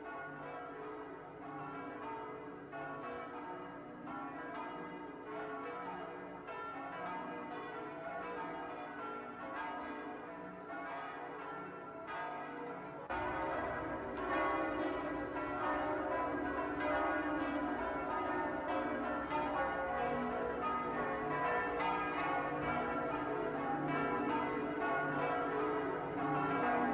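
Church bells ringing, many at once in a steady peal, which turns suddenly louder and fuller about thirteen seconds in.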